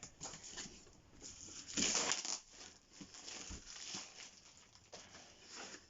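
Product packaging being opened and handled by hand: irregular rustling and crinkling with small clicks, loudest about two seconds in.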